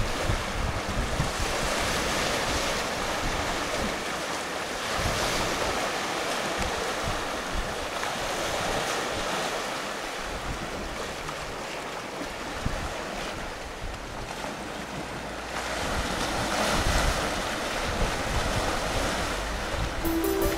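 Choppy sea water washing against a stony beach and rock groynes, swelling and fading every few seconds, with gusts of wind rumbling on the microphone.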